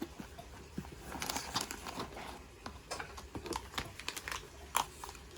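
Irregular crinkling and rustling, as of plastic or paper packaging being handled, with scattered short clicks.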